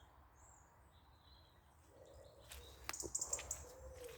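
Wild birds singing in a garden: bursts of high chirps about halfway through and a few lower short calls near the end, over faint outdoor background with a few light clicks.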